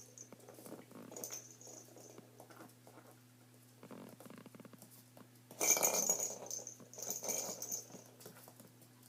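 Small puppy scrabbling and tussling with a stuffed toy and a plastic ball on a wooden floor: faint scuffles and clicks, with two louder bursts of scuffling a little past the middle.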